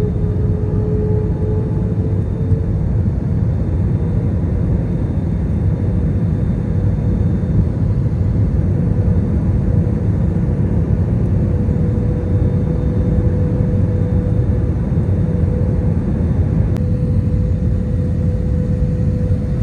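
Airliner jet engines running, heard from inside the passenger cabin: a steady deep rumble with a hum that rises a little in pitch over the first few seconds and then holds steady.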